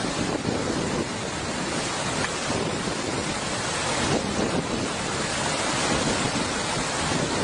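Swollen river floodwater rushing past and breaking around a half-submerged bus: a steady wash of noise, with wind buffeting the microphone.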